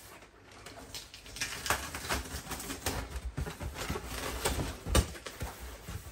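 Cardboard shipping box being opened by hand: packing tape peeled off the seam and the flaps pulled apart, a run of irregular crackles and rips, the sharpest one about five seconds in.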